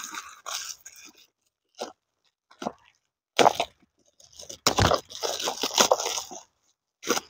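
Plastic packaging bags crinkling and rustling in irregular bursts while being handled and opened, with a few short clicks of small parts between them; the longest, loudest rustling comes about two thirds of the way through.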